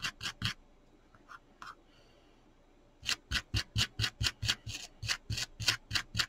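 Stiff wire brush scrubbing the cut edges of a fabric flower on a cutting mat to fray them. A few quick strokes, a pause of about two and a half seconds, then steady back-and-forth strokes about four a second from about three seconds in.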